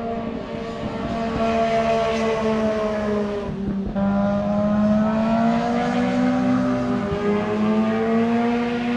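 A road vehicle's engine running loud and high in revs on the road below. Its pitch sinks slowly, drops out for a moment about four seconds in, then climbs steadily again.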